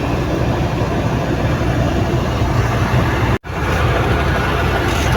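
Heavy truck engine running steadily, a low rumble heard from inside the cab. The sound drops out for an instant about three and a half seconds in.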